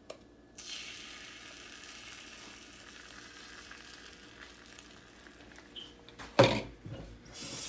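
Bread and egg sizzling in a frying pan, a steady hiss that starts about half a second in, followed by one loud knock about six seconds in.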